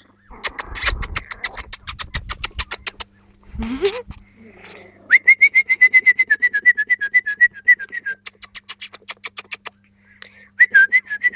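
Four-week-old Jack Russell puppies making a short rising whine, alongside a fast run of high chirping notes, about eight a second, that starts about five seconds in and comes again near the end.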